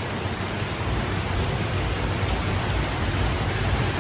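Heavy rain pouring down steadily: a dense, even hiss of rain falling on the street and nearby surfaces.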